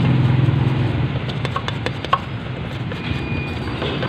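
A motor engine running with a steady low hum, with a few sharp clicks and knocks about one and a half to two seconds in from the scooter's CVT case being handled and cleaned.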